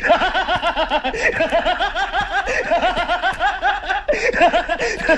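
A laughing sound effect: one person's rapid, pitched snickering laugh, a quick string of short 'heh' syllables, several a second, that cuts off suddenly at the end.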